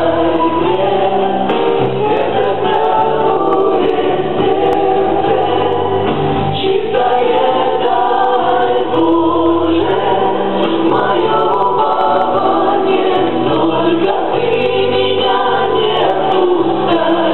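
A congregation of men and women singing a hymn together, holding long notes that change every second or two.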